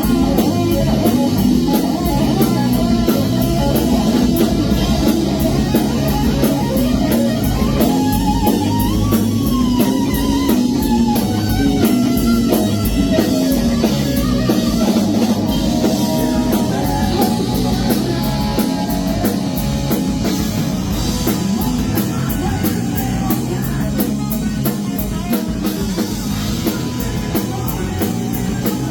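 Rock music: electric guitar over a drum kit in an instrumental passage without singing, the guitar notes bending up and down about eight seconds in.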